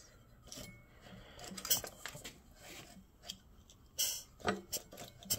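Irregular light metallic clicks and clunks, a few each second, as a 5 hp Briggs & Stratton engine and its reduction gearbox are turned over by hand. The engine has real good compression, and the owner is fighting to turn it over.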